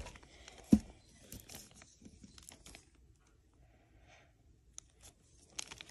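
Paper wrapper of a chocolate bar rustling and crinkling as it is handled, with a sharp knock under a second in. It goes mostly quiet after about three seconds, with a couple of faint clicks.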